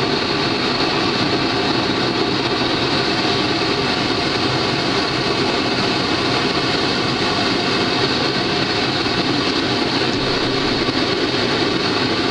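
Two homemade propane forge burners built from pipe fittings with MIG-tip gas jets, both lit and burning steadily with an even rushing noise that holds at one level throughout.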